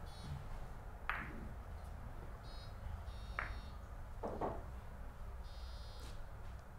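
Billiard balls being handled on the table, giving about four light, sharp knocks a second or so apart, with three short high-pitched buzzing tones between them.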